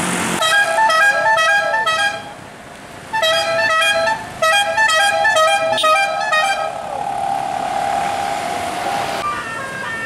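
Multi-tone telolet horn (Basuri horns run by a DAV module) playing a quick stepping melody of short notes, in two runs with a pause of about a second between them, then one long held note that stops near the end.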